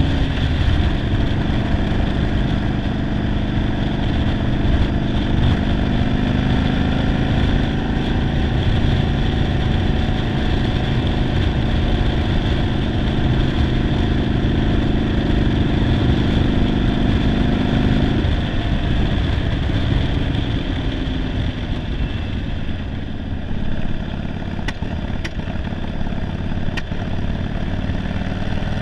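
A 1991 Yamaha Virago 750's air-cooled V-twin, converted to a single carburettor and running poorly by the owner's account, pulls steadily under way. About two-thirds of the way through its note drops and eases off, as when the throttle is rolled back.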